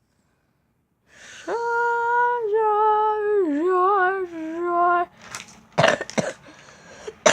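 A child's high voice humming a held, wavering tune for about three and a half seconds, starting after a second of silence, followed by a couple of short breathy sounds like coughs.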